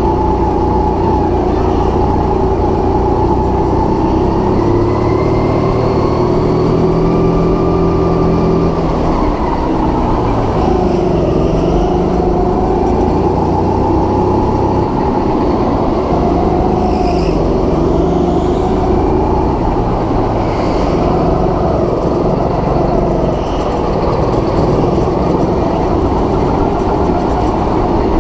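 Go-kart engine running hard and continuously, its pitch rising and falling as the kart speeds up and slows down.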